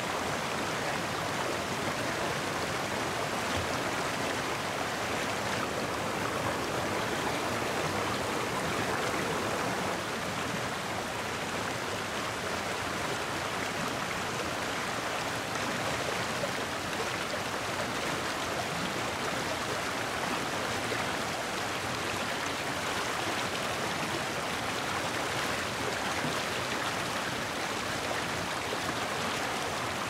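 Shallow river running fast over rocks and small rapids: a steady rush of water.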